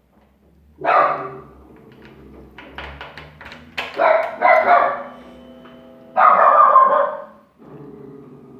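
A dog barks a few times; the barks are the loudest sounds. Between and after them, a Honda CG 160 Fan's single-cylinder engine is started cold for the first time of the day and settles into a steady idle near the end.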